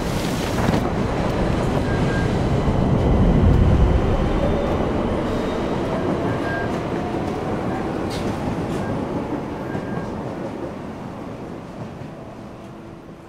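Subway train moving off along the platform: a low rumble of wheels and running gear that swells about three seconds in, then fades steadily as the train draws away.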